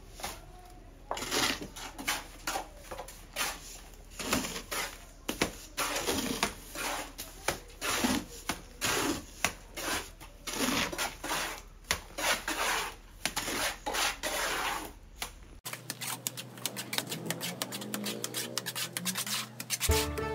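A hoe chopping and scraping through a heap of wet cement mortar, in repeated strokes about one or two a second. The strokes stop about three-quarters of the way through.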